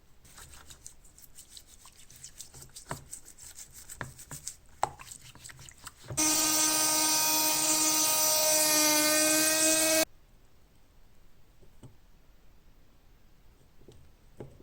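Electric grinder (sharpener) cutting through the rivets of an old steel padlock: a loud, steady high whine with grinding hiss that starts abruptly about six seconds in and cuts off about four seconds later. Before it come light scattered clicks of metal parts being handled.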